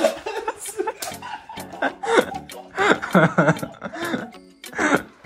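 Men laughing and chuckling, with snatches of indistinct speech.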